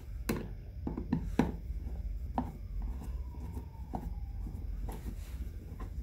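Hand screwdriver driving the screws of a plastic switch cover plate, giving a series of irregular sharp clicks as the tip catches and turns in the screw heads, the loudest in the first second and a half.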